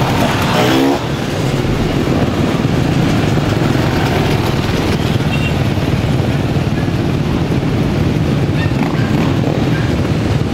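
Many enduro motorcycle engines running together in a steady, loud drone. One bike revs up briefly about half a second in.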